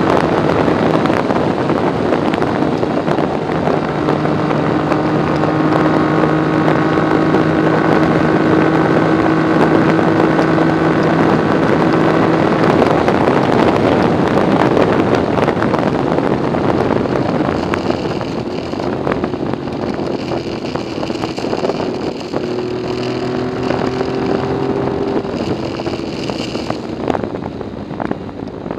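Yamaha XS750's air-cooled three-cylinder engine running at a steady highway cruise, under heavy wind rush on the microphone. About two-thirds of the way through, the engine note eases and shifts and the whole sound gets quieter as the bike slows.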